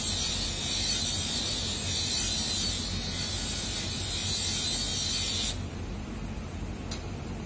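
A large steel blade ground against the wheel of a running bench grinder: a steady high hiss of metal on the wheel over the motor's low hum. The hiss stops about five and a half seconds in as the blade is lifted off, leaving the motor running, with a faint click near the end.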